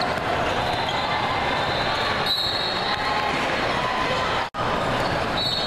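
Basketball game on a hardwood court in a large hall: a ball bouncing on the floor over the steady din of the hall, with short high squeaks about two seconds in and again near the end. The sound cuts out for an instant about three quarters of the way through.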